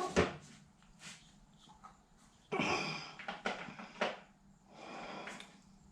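Quiet handling sounds as parts of the chop saw are worked on: a few light clicks, with a short breath-like hiss about halfway through.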